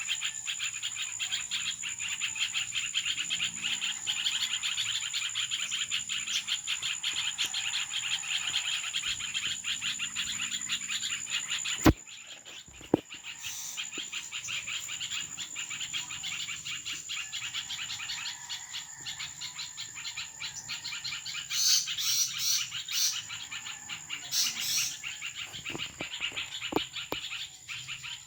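Many birds chirping in a dense dawn chorus over a steady high-pitched whine. About twelve seconds in there is a sharp click and the chorus turns quieter; a few louder, sharper calls come near the end.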